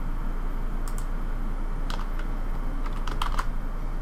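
Computer keyboard keys and mouse buttons clicking a handful of times, several bunched together about three seconds in, over a steady low hum.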